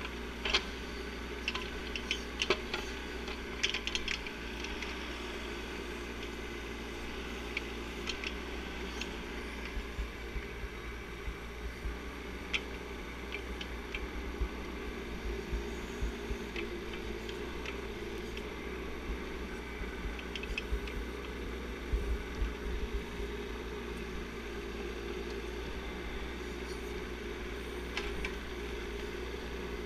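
Bobcat 418 mini excavator's engine running steadily as the machine drives along a dirt trail, with scattered clicks and knocks.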